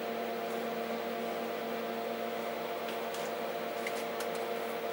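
Denford Orac CNC lathe standing idle with its spindle stopped, giving a steady electrical hum with a few constant tones.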